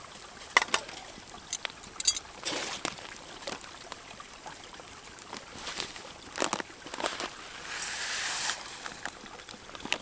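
River water running, with scattered sharp clicks and crackles over it and a louder hissing rush about eight seconds in.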